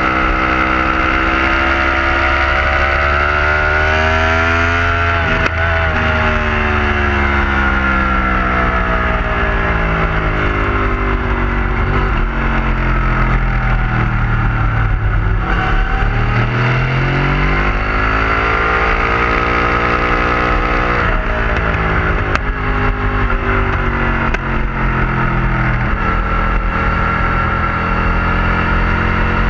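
Yamaha YZF-R1 sportbike's inline-four engine at track speed, revs climbing and falling as the rider accelerates and brakes through the corners. The pitch drops sharply about five seconds in and again about two-thirds of the way through, then climbs again.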